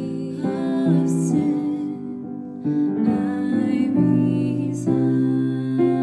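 Yamaha grand piano playing a slow hymn, with a small choir holding sustained wordless harmonies over it.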